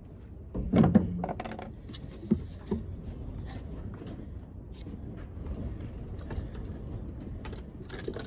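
Metal camp cookware and utensils clattering and clinking, with a loud clatter about a second in, a few sharp clicks after it, and a run of clinks near the end, over a steady low rushing noise.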